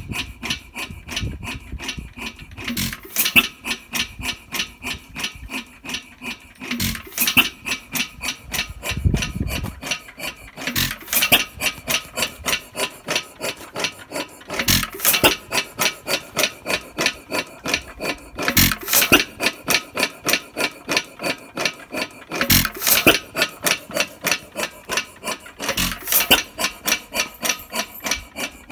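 1922 3hp Bates & Edmonds Bull Dog single-cylinder hit-and-miss engine running. It fires with a bang about every four seconds, seven times in all. In between it coasts with its exhaust valve held open by the governor, and its moving parts clack several times a second.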